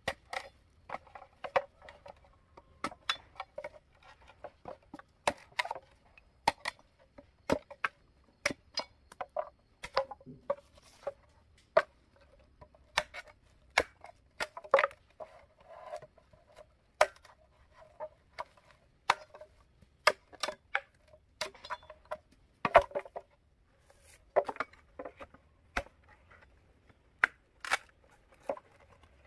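Irregular series of sharp knocks and taps, a few a second, many with a short hollow ring, as from handwork on a hard object.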